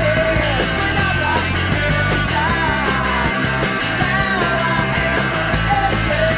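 Rock theme song with a sung lead vocal over a full band.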